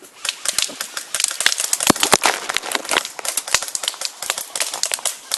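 Airsoft guns firing in rapid bursts: a dense, irregular clatter of sharp clicks and cracks that starts just after the beginning.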